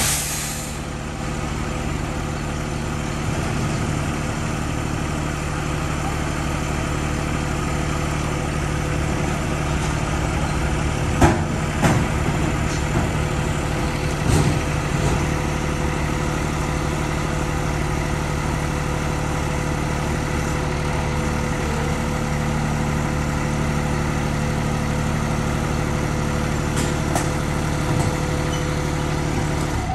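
Mini skid steer loader's engine running steadily at idle, with a few short knocks partway through.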